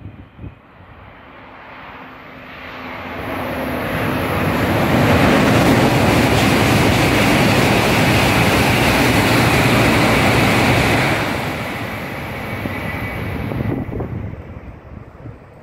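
Tohoku Shinkansen train (coupled Tsubasa and Yamabiko set) passing through the station at speed: a rushing noise that builds over about four seconds, stays loud for about six, then fades away.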